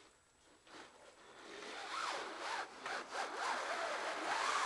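Rubbing and scraping from about two seconds in, with a wavering squeak in it, as a Virtue circuit board and its wires are worked in a paintball marker's grip frame.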